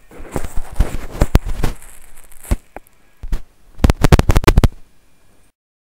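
Crackling clicks and pops picked up through a bone-conduction headset used as a microphone. A scatter of sharp clicks runs for about two and a half seconds, a few lone pops follow, then a fast cluster of clicks comes about four seconds in, and it cuts off suddenly. The recordist takes these sounds for 'microwave hearing'.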